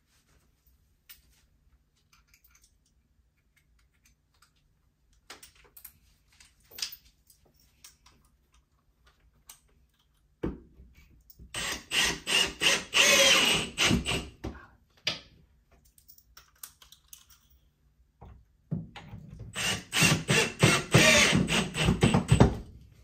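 Two bursts of fast mechanical clicking and rattling from a tool at work, each about four seconds long and a few seconds apart, after some scattered light taps.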